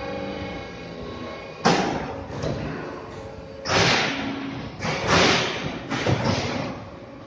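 Neptune 200-ton hydraulic fly ash brick machine running, with a steady machine hum. About a second and a half in, a series of four heavy knocks and clattering crashes begins, spaced one to two seconds apart, as the press and its pallet handling cycle.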